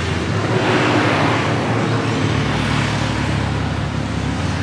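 Road traffic passing close by: cars and a motorbike driving past, engine hum with tyre noise that swells as each vehicle goes by.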